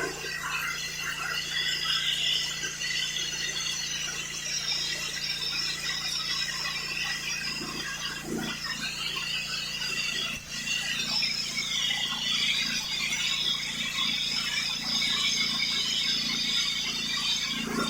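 3400 psi pressure washer spraying plastic interlocking floor tiles: a steady high hiss of the water jet over the constant low hum of the machine.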